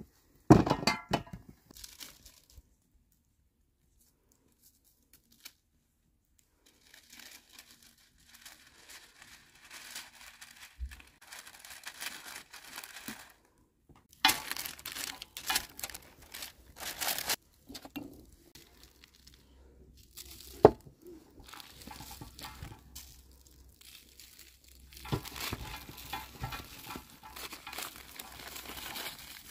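Bursts of rustling, crinkling and tearing handling noise, with a sharp knock about half a second in and another about two-thirds of the way through.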